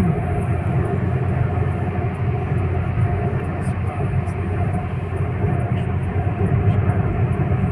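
Steady road noise inside a moving car's cabin: a low rumble of tyres and engine at highway speed.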